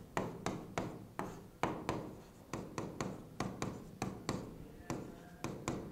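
A pen tapping and scraping on the glass of an interactive smart board while handwriting, making a string of sharp, irregular clicks about two to three a second.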